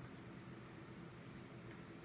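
Very quiet room tone with a faint steady hum.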